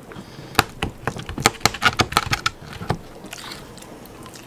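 Sharp knife cutting through a raw chicken carcass: a quick, irregular run of about a dozen sharp clicks and cracks of bone and cartilage giving way, ending about three seconds in.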